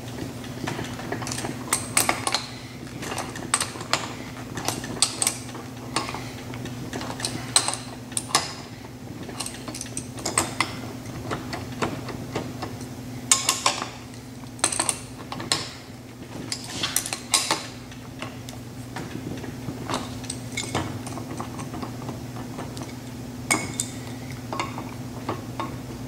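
Irregular metal clinks and clicks of a bolt, spacers, a nylon locking nut and two adjustable wrenches as a caster wheel is bolted onto a cart, over a steady low hum.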